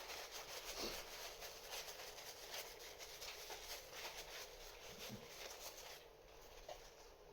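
Faint rustling and light clicks from hands handling the small wheels and plastic spacers of a combination safe lock as it is taken apart. The sounds thin out about six seconds in.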